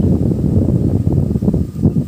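Wind buffeting the microphone in uneven gusts, a loud low rumble.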